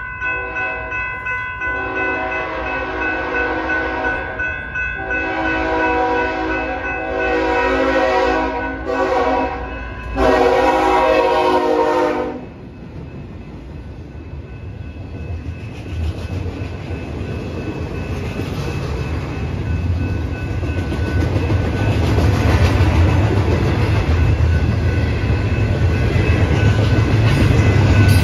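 A BNSF diesel locomotive's air horn sounds the grade-crossing signal (long, long, short, long) over the crossing bells, then stops about twelve seconds in. The rumble and clatter of the passing freight cars then builds steadily louder.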